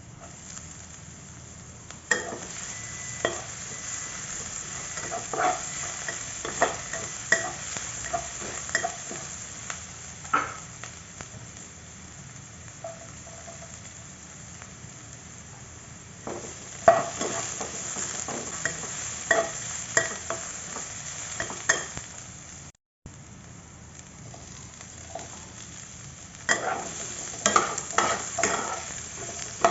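Stir-frying in a hot pan: a steady sizzle, with several bouts of a spatula scraping and knocking against the pan as the food is stirred, and quieter stretches of sizzle alone between them.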